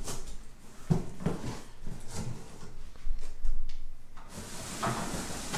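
Large cardboard box holding an artificial Christmas tree being opened and handled: a series of knocks and thumps from the flaps and contents, then rustling and scraping near the end.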